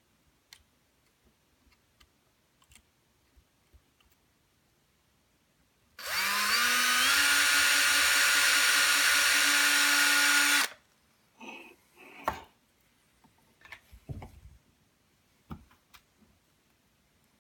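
Small electric drill spins up with a quickly rising pitch, runs steadily for about four and a half seconds, then cuts off abruptly. A few light knocks and clicks of handling follow.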